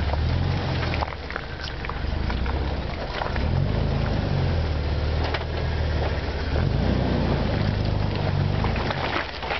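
Jeep engine running at low revs as it crawls through soft mud, its pitch rising and falling twice as the throttle is worked. Tyres crackle and crunch in the dirt throughout.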